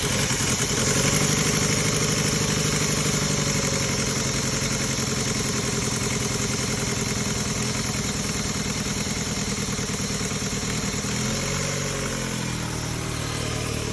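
Saturn L-Series car engine idling steadily; about eleven seconds in its speed dips briefly and settles again.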